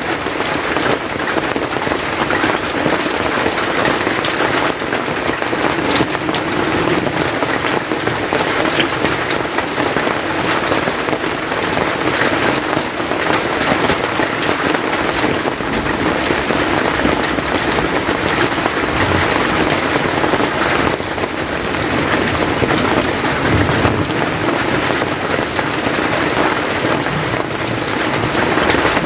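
Steady rain falling, heard from under the roof of an open-sided hut.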